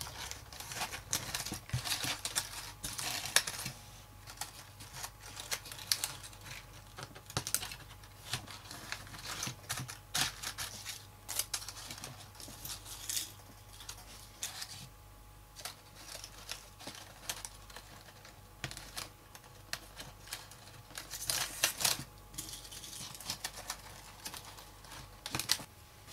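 Paper flowers rustling and crinkling as hands arrange them and push pins through them into a foam wreath, with many irregular small clicks and taps. The handling comes in busier spells, the busiest about twenty-one seconds in.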